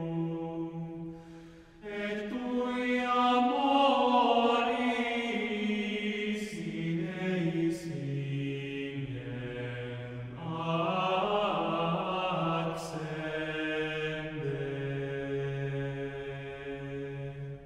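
Male vocal ensemble singing slow, sustained sacred choral music in chant-like harmony, with a short break between phrases about two seconds in.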